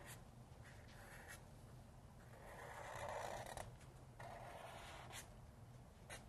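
Felt-tip marker drawing on sketchbook paper: faint scratchy strokes, the longest from about two and a half to three and a half seconds in and another just after four seconds.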